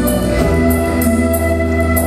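Children's recorder ensemble playing a melody in long, held notes over a backing track with deep bass and a steady ticking beat.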